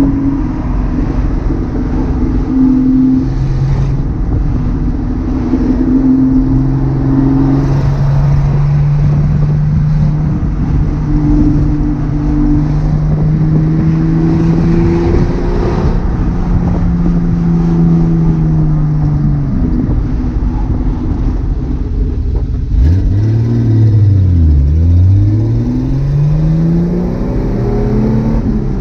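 1978 Datsun 280Z's straight-six engine and exhaust under way, its pitch climbing steadily through the gears and stepping down at each shift. Near the end the pitch falls away sharply and climbs back as the engine revs up again.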